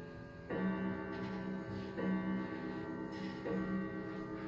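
Hanson grandfather clock striking twelve on its single chime: three deep struck tones about a second and a half apart, each ringing on into the next.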